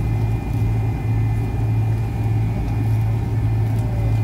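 Steady cabin noise of an MD-83 taxiing, its tail-mounted JT8D turbofans at idle: a strong low hum over a rushing noise, with faint thin high tones above.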